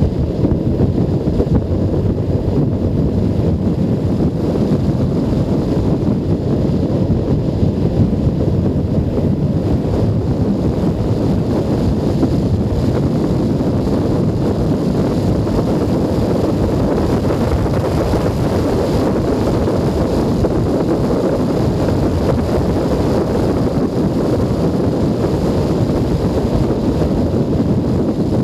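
Steady wind rumble on a helmet-mounted camera's microphone while riding, with a Junak M12 Vintage 125 cc motorcycle's engine running steadily underneath it.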